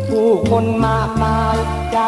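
Thai luk thung song playing: a band passage with bass notes changing every half second or so under a melody that slides between notes.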